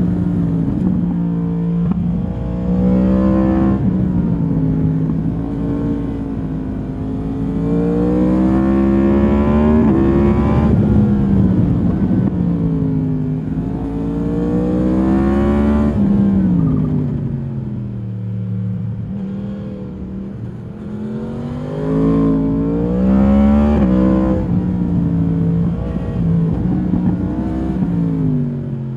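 2022 Yamaha MT-10's crossplane inline-four through its stock exhaust, heard from on board while riding: the engine note climbs and drops again and again as the rider opens and closes the throttle, with a long wind-down a little past halfway before it pulls hard again.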